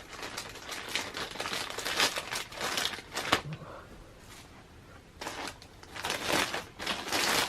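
Packaging being crinkled and rustled by hand while a parcel is opened: irregular crackling rustles, a quieter spell in the middle, then more crinkling near the end.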